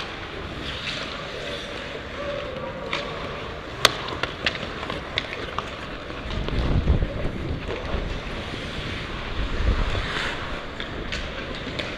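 Ice hockey play on a rink: sharp clacks of sticks on the puck, the loudest about four seconds in and a quick run of them just after, over the arena's echoing background. Low gusts of wind noise rumble on the helmet microphone twice in the second half as the referee skates.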